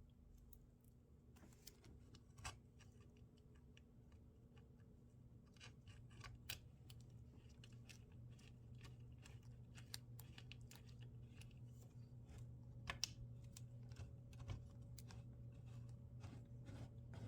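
Faint, scattered clicks and taps of small parts and screws being handled as a laser engraver's power supply is refitted to its frame, over a low steady hum.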